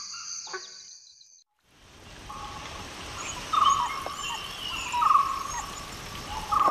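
Crickets trilling fade out in the first second and a half, and after a brief hush a new outdoor ambience comes up. In it are short whistling cries of dhole pups, repeating about every second and a half, with faint high chirps above them.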